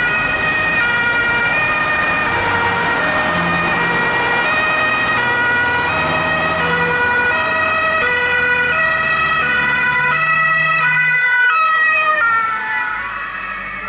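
German two-tone emergency siren (Martinshorn) on a blood and organ transport car, alternating between a high and a low tone as the car approaches. About twelve seconds in its pitch drops as the car passes, and the siren fades as it drives away.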